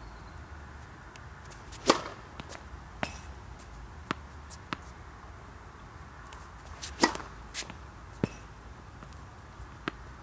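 Tennis serves: two sharp pops of the racket strings striking the ball, about two seconds in and again about seven seconds in, with several fainter knocks around them.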